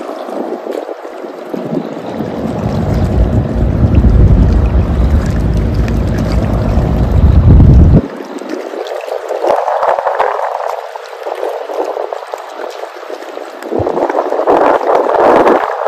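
Wind buffeting the microphone with a heavy low rumble that cuts off abruptly about eight seconds in, then a lighter hiss of wind and rippling river water that grows louder near the end.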